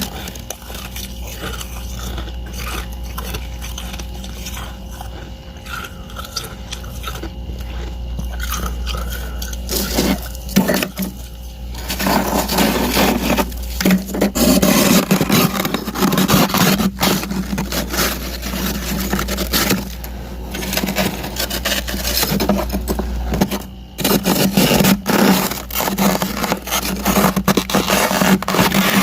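Dry, powdery freezer frost being scraped and crunched, crisp and squeaky. It turns into dense, loud crunching about twelve seconds in. A steady low hum runs under the first part.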